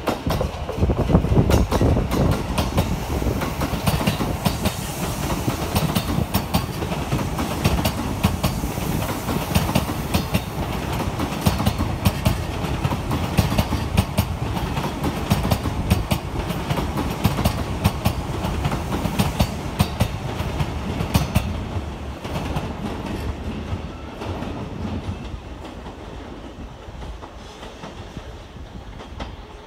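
E233-series electric commuter train running past on the Negishi line: a steady rolling rumble with rapid clicks of the wheels over rail joints and points. The sound fades over the last several seconds as the train draws away.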